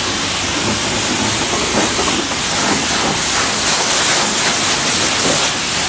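Self-serve car-wash high-pressure wand spraying rinse water onto a car's body: a steady, loud hiss of spray.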